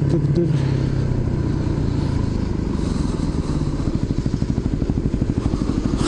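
Dirt bike's engine heard from the rider's helmet while riding in traffic: a steady running note, settling into a low, fast, even putter in the second half, with wind noise.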